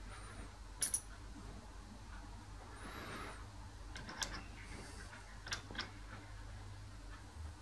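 Light metal clicks and clinks of small machined parts being handled while fitting a bearing and shaft into a gear housing: a few sharp clicks about a second in, at four seconds and around five and a half seconds, over a low steady hum.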